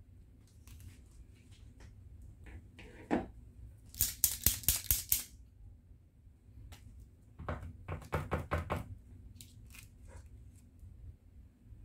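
Rapid rattling clicks of an edding 750 paint marker's mixing ball as the marker is shaken: a loud burst about four seconds in and a second, softer burst about eight seconds in. Lighter handling clicks and rustles come between.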